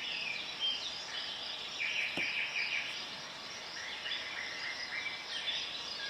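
Insects chirping in repeated trills, a steady background chorus, with one faint short click about two seconds in.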